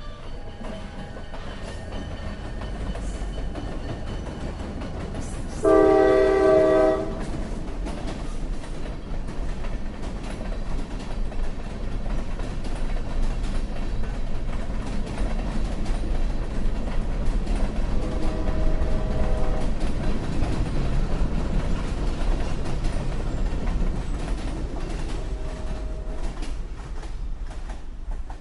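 CSX freight train led by EMD SD70MAC and SD40-2 diesel locomotives rolling past, with a steady diesel rumble and wheels clacking on the rails. The lead locomotive's air horn gives one loud blast about six seconds in and a shorter, fainter blast about eighteen seconds in.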